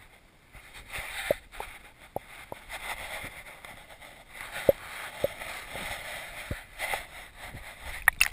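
Muffled underwater noise heard through a GoPro HD's sealed waterproof housing: an uneven hiss with scattered sharp clicks, and a cluster of louder clicks near the end.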